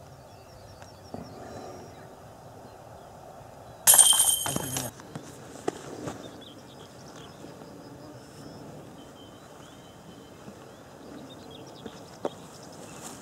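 A disc striking the chains of a disc golf basket: one sudden metallic jangle about four seconds in that rings and fades over about a second.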